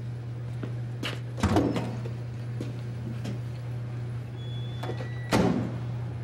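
Two heavy clunks about four seconds apart, with a few lighter knocks, over a steady low hum.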